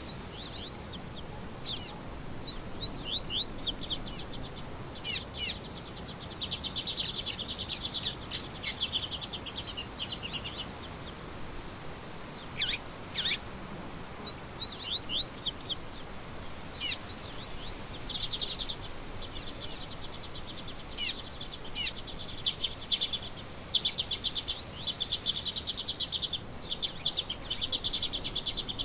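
Small songbirds singing: quick, sharply falling chirps mixed with long rapid trills, high-pitched and nearly continuous, over a faint steady background hiss.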